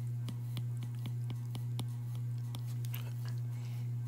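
Stylus tip tapping on a tablet's glass screen while drawing a dashed line stroke by stroke, about four light clicks a second, over a steady low electrical hum.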